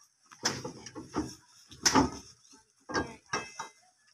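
Bundles of cut sugarcane stalks dropped and shoved onto a truck's stacked load, clattering and rustling in about six short bursts, the loudest about two seconds in.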